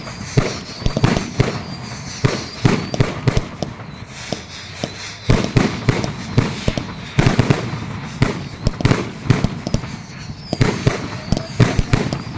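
Fireworks going off in rapid, irregular succession: a dense run of sharp bangs and crackling reports, easing briefly about four seconds in before a loud bang starts a new volley.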